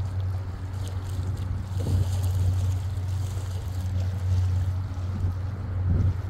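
Steady low rumble of wind buffeting the microphone, with faint water lapping at the shore.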